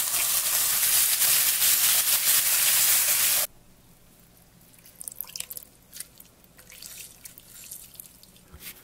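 Diced onions and olive oil sizzling in a hot frying pan as crème fraîche goes in; the sizzle cuts off suddenly about three and a half seconds in. Then faint drips and small ticks as a lemon half is squeezed through a small strainer into the sauce.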